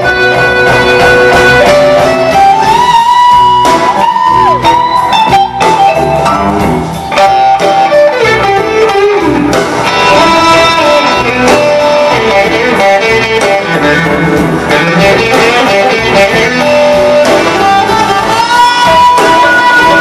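Live blues-rock band playing: an electric guitar lead with long held notes that bend and slide in pitch, over bass and drums.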